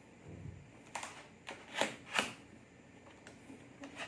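Handling noises from opening a product box: a soft low thump just after the start, then several short, sharp clicks and scrapes, loudest twice around two seconds in.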